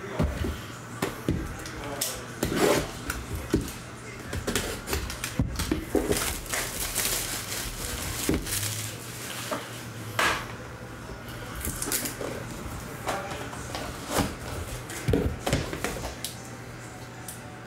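Hands handling shrink-wrapped cardboard trading-card boxes: the plastic shrink wrap crinkles as it is pulled off, with repeated taps and knocks of the boxes against each other and the table, over a steady low hum.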